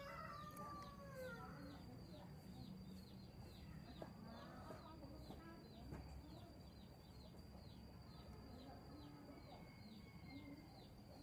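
Chickens clucking faintly, once at the start and again about four to five seconds in, over a high chirping repeated about three times a second.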